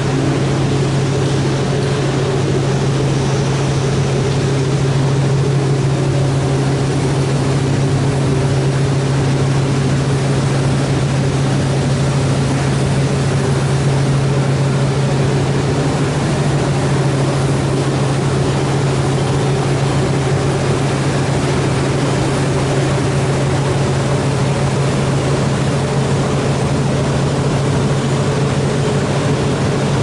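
Steady drone of running industrial plant machinery: a constant low hum under a broad rushing noise, unchanging throughout.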